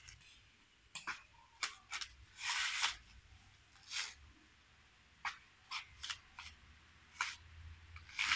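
Coconut husk being torn open on a metal husking spike: a string of sharp cracks and fibrous ripping sounds, with a longer tear about two and a half seconds in.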